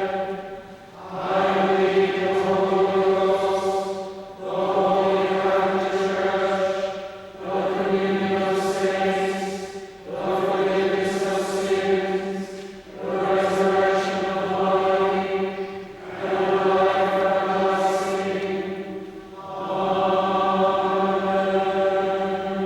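Many voices chanting together in held phrases of about three seconds each, with short breaks between them.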